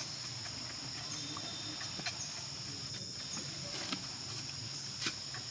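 A steady, high-pitched insect drone of the cicada or cricket kind, with scattered faint clicks and taps, the clearest about two, four and five seconds in.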